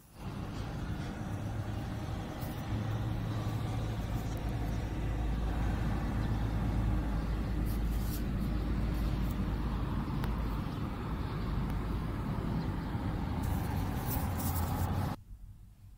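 Steady city road traffic noise: a low rumble of cars, buses and trucks, with a few light clicks. It cuts off suddenly about a second before the end.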